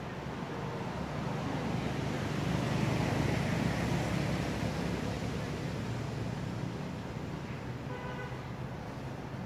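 A road vehicle passing: a steady rumble that swells to a peak about three or four seconds in and then fades. A brief faint tone sounds near the end.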